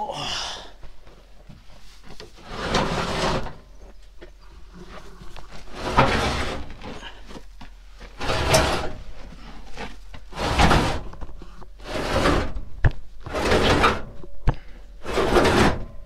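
An empty plastic IBC tote in its steel cage being dragged and shoved across dirt in a series of heaves, each pull a short scrape, roughly one every one and a half to two seconds, with a couple of sharp knocks from the metal frame.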